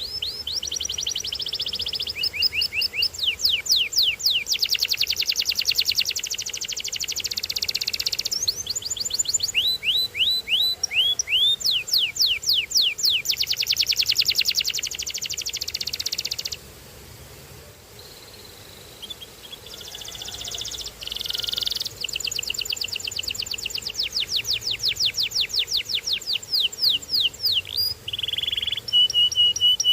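Canary singing: rapid trills of repeated high sweeping notes, switching from one trill to the next, with a pause of about three seconds just past the middle before the song resumes. Near the end it holds a couple of short steady whistled notes.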